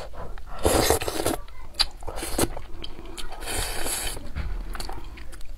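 Close-miked mouth sounds of a person eating spicy braised fish: biting and chewing, in three noisy bursts.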